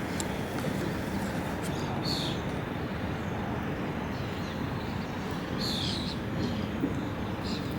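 Steady outdoor background noise with a few short bird chirps, about two seconds in, near six seconds, and near the end.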